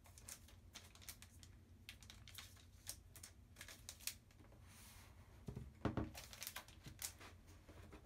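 Faint handling sounds of a laptop being unboxed: small clicks and rustles as the aluminium MacBook Pro is lifted out of its cardboard box, a soft brushing slide about five seconds in, then a few dull knocks a little later as the laptop is set down on the desk.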